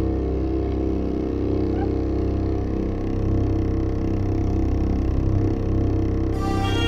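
Background music: a low, sustained drone, with higher melodic notes coming in near the end.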